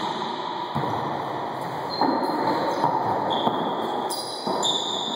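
Rally noise in an enclosed court: sneakers squeaking on the hardwood floor in short high squeals, and the ball being struck a few times, everything echoing off the walls.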